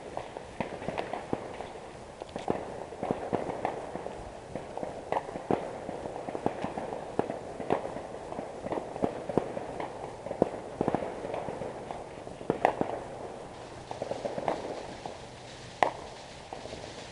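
Fireworks and firecrackers going off around a neighbourhood: an irregular run of pops and crackles, several a second, with a couple of louder bangs in the second half.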